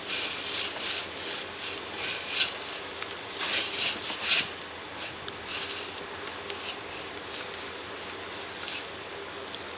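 Irregular scraping and rubbing from a drain inspection camera and its push rod being worked through a 150 mm stormwater pipe, over a steady hiss. The scrapes come thickly for the first four seconds or so, then thin out to a few light ticks.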